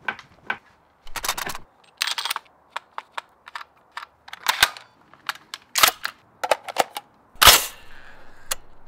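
Mechanical handling noise of an airsoft G3 replica rifle and its hard case: an irregular string of sharp plastic-and-metal clicks and clacks, with the loudest clack about seven and a half seconds in.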